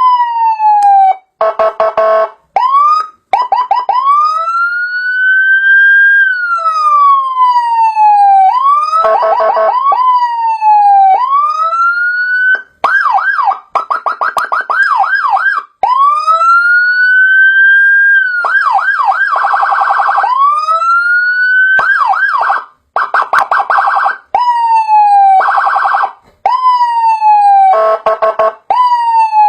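A 40-watt electronic siren module playing Whelen-style police tones, switching between a slow rising-and-falling wail, rapid yelp sweeps and short blasts of a harsh buzzing horn tone. It is loud, with brief breaks between tone changes.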